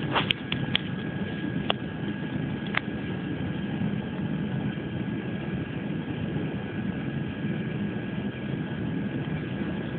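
A steady low machine rumble with a constant thin high whine over it, and a few light clicks in the first three seconds.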